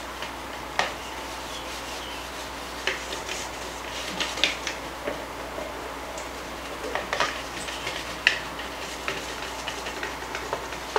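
A whisk beating a liquid marinade in a mixing bowl: irregular clicks and scrapes of the whisk against the bowl.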